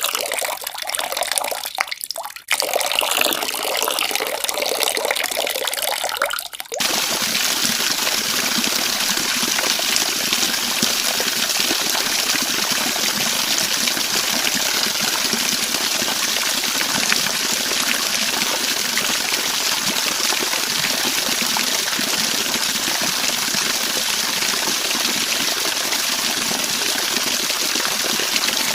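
Waterfall: falling water rushing in a dense, steady hiss. Its sound changes abruptly twice, about two and a half and seven seconds in, after which it holds a fuller, unbroken rush.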